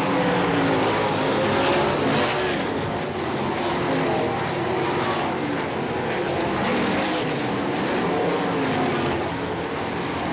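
Several winged sprint cars' V8 engines racing on a dirt oval, revving up and down as they come through the turns and pass close by, their pitches rising and falling over one another.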